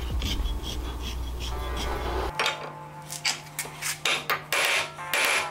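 Metal clinking and scraping as the steel crankshaft of a Predator 212 engine is handled, then a series of sharp metallic ball-peen hammer taps on the crankshaft in the second half, knocking off the governor drive gear.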